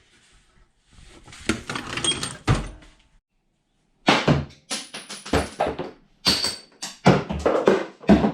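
Metal hand tools (sockets, ratchet and extension) being handled and set down: a rattle with knocks, a short pause, then a run of sharp clanks and knocks.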